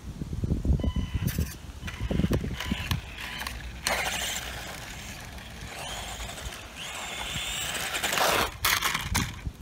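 Tamiya Rising Fighter electric RC buggy driving on asphalt: its silver-can electric motor and DT-01 gearbox whine with tyre rumble and small knocks. The whine grows louder near the end as the buggy comes back close, then cuts off.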